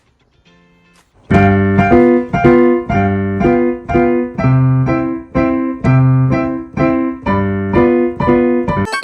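Piano playing a steady pattern of repeated chords with strong bass notes, starting loudly about a second in; near the end it cuts abruptly to a higher, quicker run of notes.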